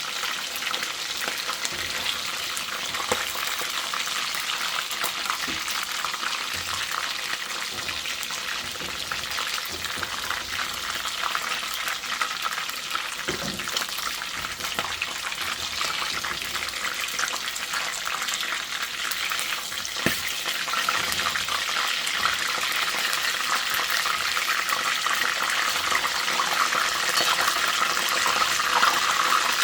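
Chicken pieces frying in hot oil in a pot: a steady crackling sizzle, with a few sharp knocks along the way, growing slightly louder near the end.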